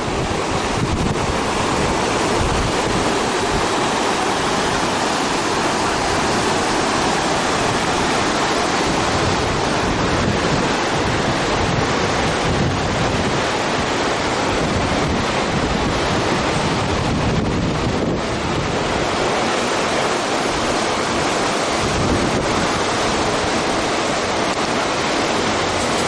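River whitewater rapids: a steady rush of churning water.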